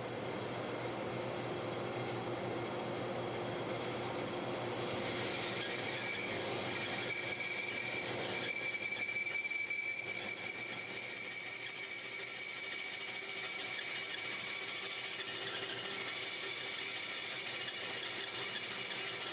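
Band saw running with its blade cutting through a thick block of glued-up maple, a steady machine noise. A thin, steady high squeal joins about five seconds in.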